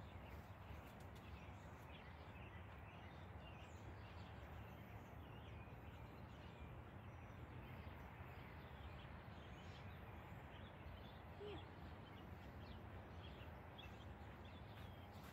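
Near silence: faint steady outdoor background noise with a few faint bird chirps scattered through it.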